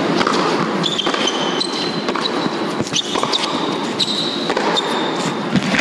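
Tennis rally on an indoor hard court: a sharp racket-on-ball hit or ball bounce every half-second or so, with short high squeaks of shoes on the court, over steady crowd noise.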